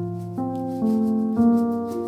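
Background music: a slow melody of sustained keyboard notes, a new note or chord coming in about every half second.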